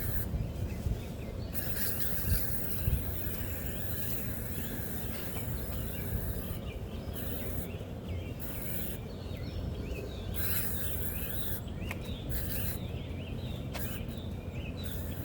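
Outdoor ambience of birds chirping again and again, with a high insect hiss that starts and stops several times over a steady low rumble.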